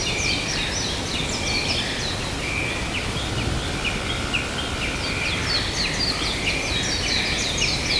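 Many birds chirping in a busy chorus of quick, falling notes over a steady low background noise; the chirping thins out about two and a half seconds in and picks up again about five seconds in.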